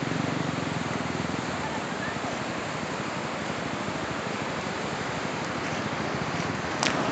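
Steady rushing noise of coastal wind and surf, rumbling low on the microphone, with one sharp click near the end.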